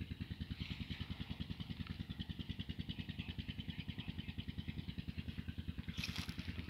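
Diesel engine of a Belarus 510 tractor idling with a steady, even pulsing beat.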